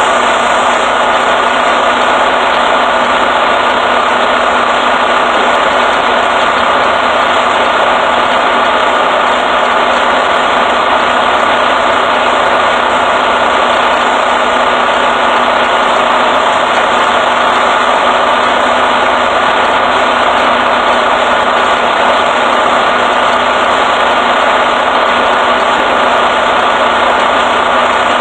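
Semi-truck diesel engine idling, a loud steady rumble and hum that does not change.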